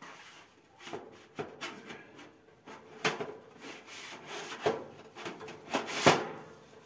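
Parts of a rabbit cage being handled and fitted together: scraping and rubbing with a series of sharp knocks, the loudest about six seconds in.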